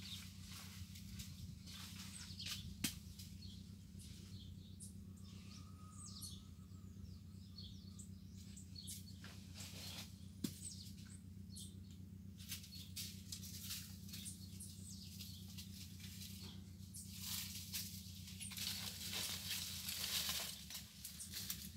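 Quiet rural outdoor background: scattered high chirps and ticks over a steady low hum, with two sharp clicks. The chirping grows denser and louder in the last few seconds.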